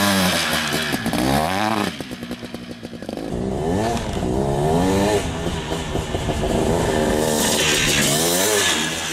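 Large-displacement 700cc two-stroke dirt bike engine being ridden hard, its pitch sweeping up and down again and again as the throttle is opened and closed. There is a break about two seconds in, where the sound changes to another riding pass.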